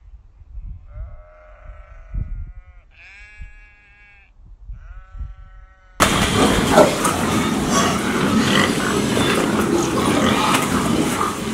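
Goat bleating, three quavering calls, then a sudden cut to a much louder, continuous noise of pigs grunting.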